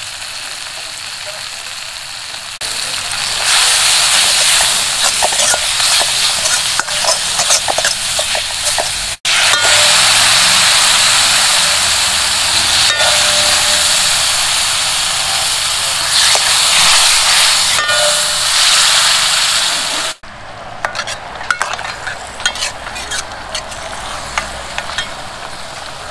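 Food sizzling and frying in a hot pan, with clicks of a utensil stirring it. The sizzle swells loud about three seconds in and falls back to a quieter hiss near the end.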